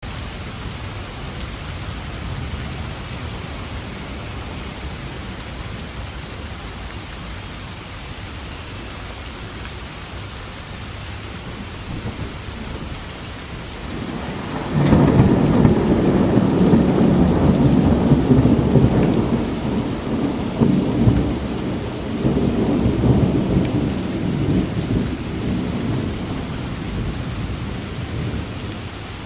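Steady rain falling, then about halfway through a sudden loud thunderclap that rumbles on in waves and slowly dies away.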